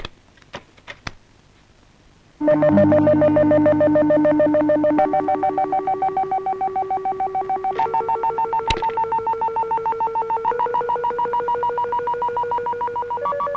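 A few sharp taps, then background film score: sustained organ-like synthesizer chords with a fast tremolo flutter, moving to a new chord every two to three seconds.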